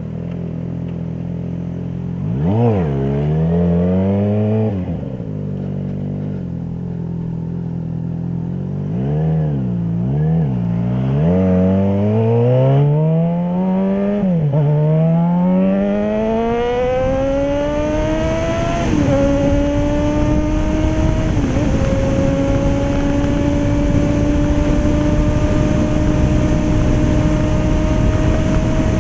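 Yamaha XJ6 motorcycle's inline-four engine under way: a few short throttle blips, then a long rising pull through the revs, with upshifts about two-thirds of the way in, settling into a steady run with the pitch slowly climbing. Rushing noise builds as the speed rises.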